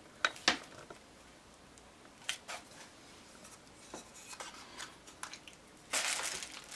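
Handling noise from a new Canon EOS Rebel SL2 DSLR body: two sharp clicks at the start, then a few fainter clicks and ticks as it is turned over and its controls are handled. Near the end comes a short crinkle of plastic packaging.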